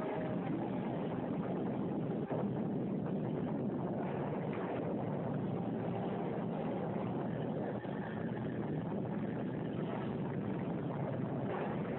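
Steady rumbling roar of noise with no clear pitch, the blast roar of an atomic bomb test as its shock wave sweeps over a test house. The roar briefly dips about two seconds in and again near eight seconds.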